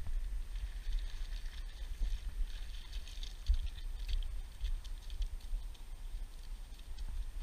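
Footsteps crunching through dry grass and twigs, heard as scattered faint crackles and ticks, over a steady low rumble on the microphone.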